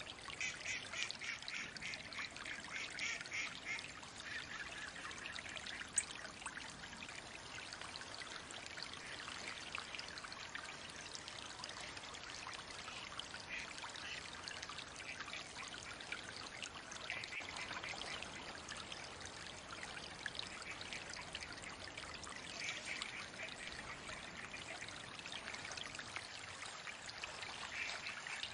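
Steady trickling, running water, with mallards dabbling and splashing on it; louder patches in the first few seconds and again near the end, and one sharp click about six seconds in.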